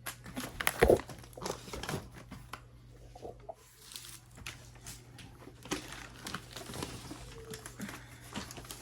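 Firework cakes being handled: cardboard boxes and their wrapping rubbing, crinkling and knocking, with a heavy thump about a second in, over a steady low hum.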